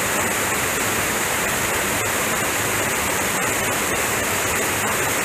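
Water pouring over a low dam's spillway into a creek pool: a steady rush of falling water.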